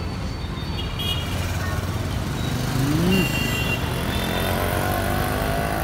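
Busy road traffic: scooters, motorcycles and cars passing close by with engines running, and one engine note rising about three seconds in.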